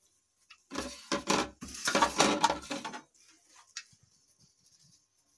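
A wet cloth bundle of grated cauliflower being wrung by hand, with the cloth rustling and the squeezed-out water splattering onto a steel plate in several bursts for about two seconds. A few faint clicks follow.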